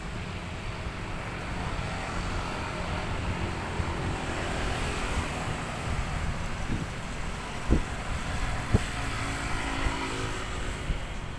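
Street traffic ambience, with motorbikes and cars passing as a steady rumble and hiss. Two short dull thumps come about a second apart in the latter half.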